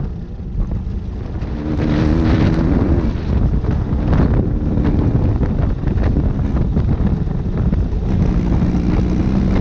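Off-road buggy's engine running as the buggy drives, its note rising and falling with the throttle, with wind rumbling on the microphone.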